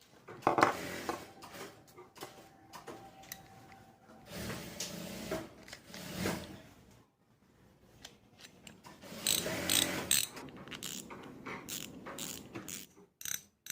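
Spinning reel's repaired clicker ratcheting: three runs of rapid clicks as the spool turns, then scattered single clicks near the end.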